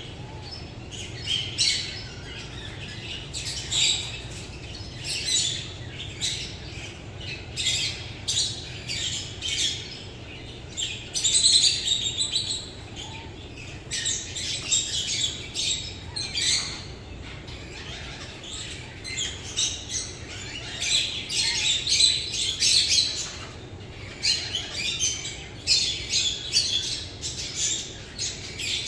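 Small birds chirping and twittering: many short, high calls in quick, irregular runs, with no let-up.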